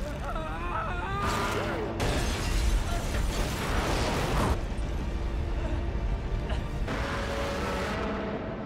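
Giant-monster film soundtrack: heavy low rumbling and crashing noise with music underneath, and wavering high cries in the first second or so.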